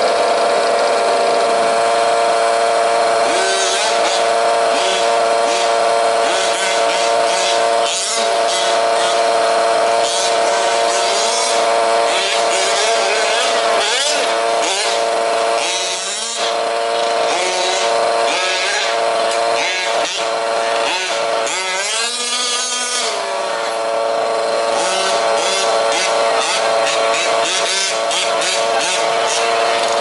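Small two-stroke petrol engines of 1/5-scale RC off-road trucks running, one holding a steady idle while others rev up and down over it, with one rising and falling rev about two-thirds of the way through.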